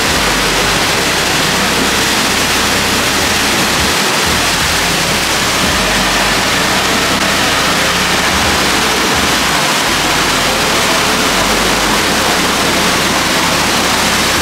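Nissan Patrol's engine running under load while its tyres spin in deep mud, flinging muddy water in a steady loud rush that covers the engine note.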